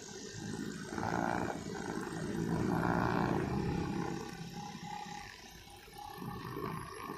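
Honda GX four-stroke engine of a backpack brush cutter with a nylon string head running, its revs rising and falling. It eases off to a lower, quieter run from about four and a half to six seconds in, then picks up again.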